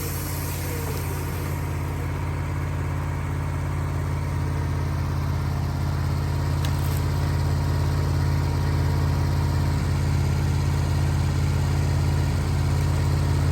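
Woodmizer LT15 sawmill's engine running steadily through a cut, growing slightly louder along the way.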